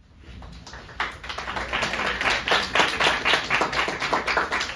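A small audience applauding, the clapping swelling about a second in.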